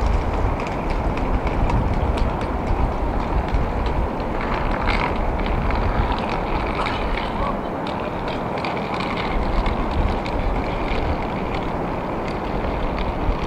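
Steady rush of ocean surf around a pier, mixed with wind buffeting the microphone, with scattered light clicks throughout.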